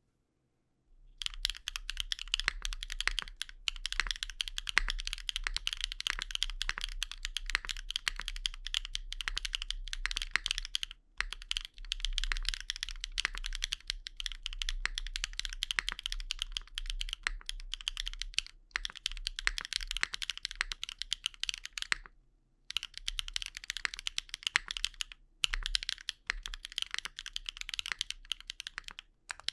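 Continuous typing on a Neo 65cu mechanical keyboard with Wingtree BM11 tactile switches in polycarbonate housings, on an aluminium plate with no foam and GMK keycaps. A full, poppy keystroke sound with a little ticking comes as a dense stream of key presses starting about a second in, broken by short pauses around the middle and near the end.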